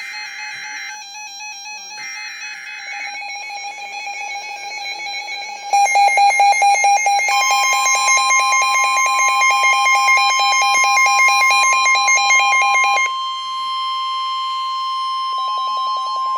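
Emergency alert tones: three short screeching data bursts of the alert header near the start, over a wavering tone. About six seconds in, a loud rapidly pulsing alarm tone begins, and a steady single-pitched weather-radio attention tone joins it just over a second later. The pulsing stops about thirteen seconds in and briefly returns near the end, while the steady tone holds.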